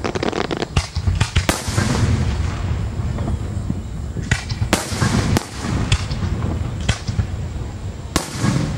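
Aerial fireworks shells bursting in quick succession: a string of sharp bangs, several close together about halfway through, with crackling among them.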